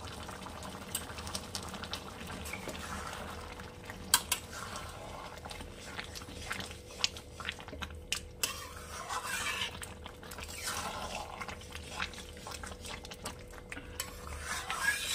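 A metal spatula stirring a thick simmering vegetable curry in a metal kadai: scraping and clinking against the pan, with a few sharp knocks. The most scraping comes about two-thirds of the way through and again near the end.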